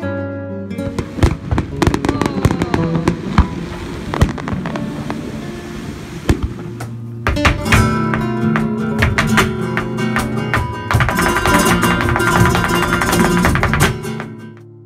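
Flamenco music: acoustic guitar playing with many sharp percussive strikes, fading out near the end.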